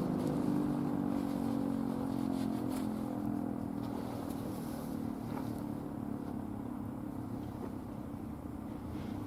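ACA Screamer S-5 outdoor warning siren winding down at the end of its alert signal: a low, slightly sagging tone that slowly fades.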